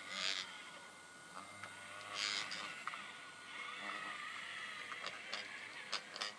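Electric drive of a large radio-controlled road roller model whining as it runs, the whine dropping out and coming back wavering in pitch. Two short hissing bursts about two seconds apart, and a few sharp clicks near the end.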